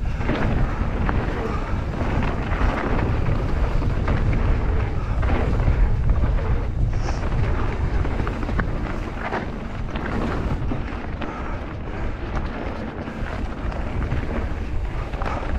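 Mountain bike riding fast down a trail, heard from a helmet-mounted camera: wind rushing over the microphone and the rumble of the tyres on the ground, with frequent small rattles and knocks from the bike.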